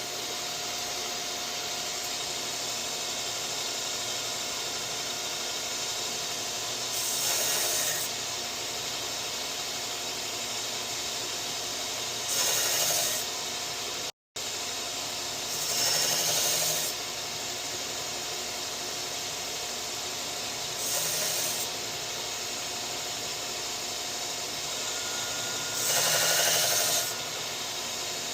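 Belt grinder running steadily on a worn, roughly 1000-grit polishing belt. Five brief grinding hisses, a few seconds apart, come as a fabric-shear blade is drawn across the belt to polish the edge up to a burr.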